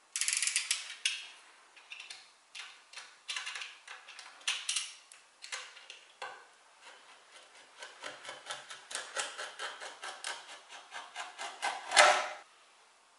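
Snap-off utility knife drawn along a steel ruler, cutting into a bent plywood chair backrest: a series of short scratchy strokes. They come in a quicker run of about three a second in the second half, and the loudest, longest stroke falls near the end.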